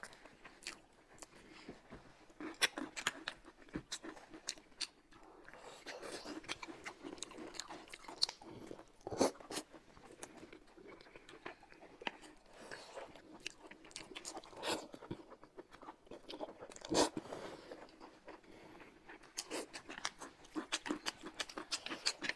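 Close-miked eating: chewing and crunchy bites, with many sharp clicks throughout.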